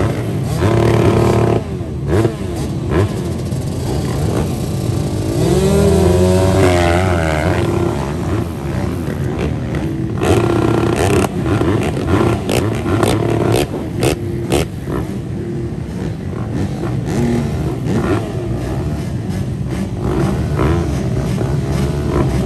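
Several motocross bikes idling together at the starting line, with engines revved up and down, one rev clearly rising and falling about six seconds in.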